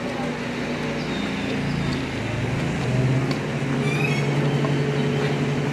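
A motor vehicle engine running steadily, growing a little louder about halfway through, with a brief high chirp about four seconds in.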